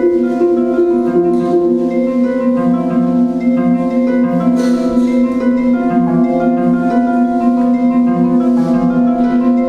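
Instrumental music: many sustained, overlapping notes ringing like mallet percussion or harp.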